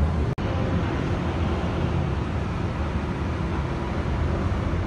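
Steady low rumble of background vehicle and traffic noise, with a brief dropout about a third of a second in.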